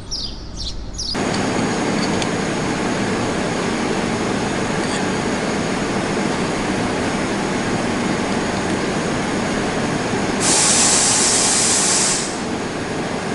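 Steady loud noise of machine-shop machinery running, with faint steady tones in it; a louder high hiss starts about ten seconds in and stops about two seconds later. Birds chirp briefly at the very start.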